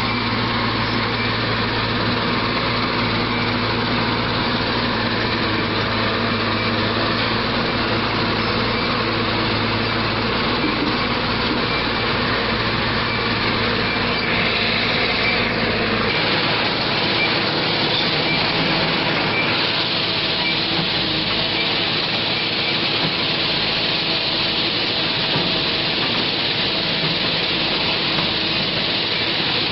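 JCB backhoe loader's diesel engine running steadily as the machine works. About halfway through, the deep low rumble thins out and the engine note shifts.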